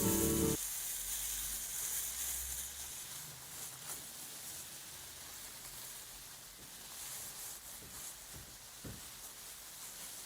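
A plastic bag rustled to imitate rain: a soft, even hiss with faint crackles, starting as background music stops about half a second in.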